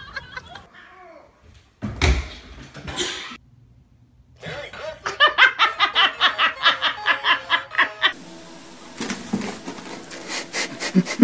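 A person laughing hard in a quick, even run of bursts for about three and a half seconds in the middle, after a thump about two seconds in. Scattered clicks and rustling follow near the end.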